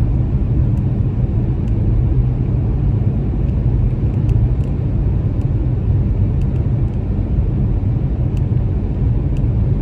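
Car driving along a road: a steady low rumble of engine and tyres on the road surface.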